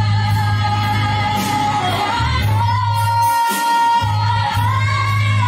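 Woman belting long, sustained high notes into a microphone over backing music with a steady bass line. She holds one note, dips briefly about two seconds in, then climbs to a higher held note that rises again near the end.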